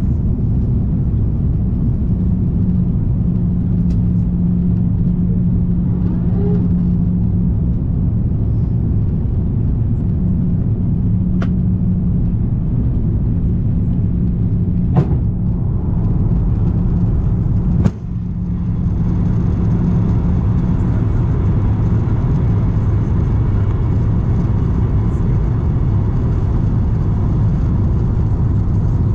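Steady cabin noise inside an Airbus A340-300 airliner: the low rumble of its four CFM56 engines and the airflow, with a steady hum. A few sharp clicks sound through it, and about two-thirds of the way in the noise briefly dips and then carries a little more hiss.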